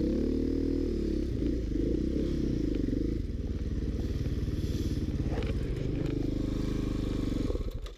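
Dirt bike engine running under way, its pitch rising and falling as the throttle is worked, with a few knocks from the bike over rough ground. It cuts off suddenly near the end.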